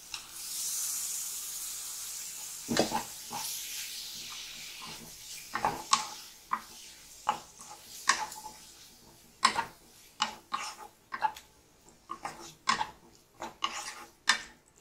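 Raw chicken pieces sizzling in a hot non-stick pan of fried onions and masala, the hiss fading over the first few seconds. A flat spatula then scrapes and knocks against the pan again and again, one or two strokes a second, as the chicken is stirred into the masala.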